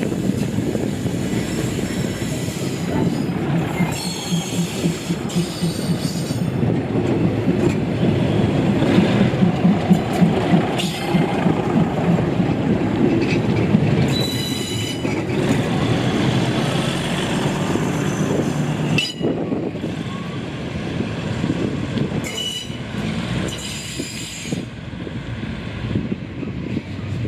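A train running on the rails, a steady rumble with a few brief, high-pitched squeals from the wheels on the track.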